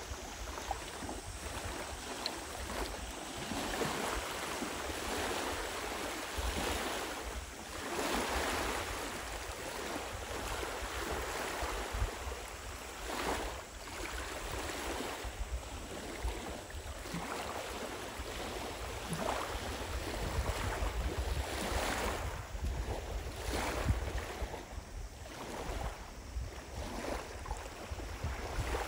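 Small lake waves washing ashore, a steady wash that swells and fades every few seconds, with wind rumbling on the microphone.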